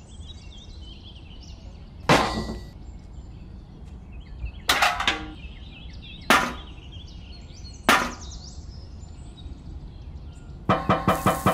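Small tin toy buckets clinking and knocking as they are handled and set down: four sharp knocks a second or two apart, with faint birds chirping behind. Near the end a fast, even mechanical knocking of about five beats a second starts up.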